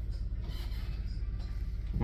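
Restaurant room noise: a steady low hum with no distinct events.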